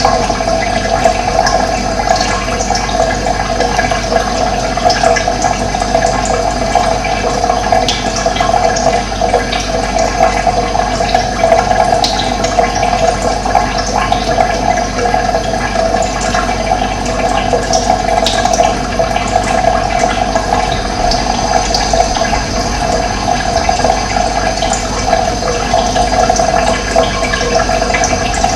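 Running water flowing steadily and without a break, a constant rushing.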